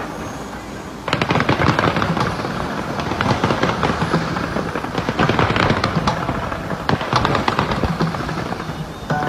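Fireworks display: a dense, rapid crackle of many pops that sets in suddenly about a second in and runs on, easing briefly near the end.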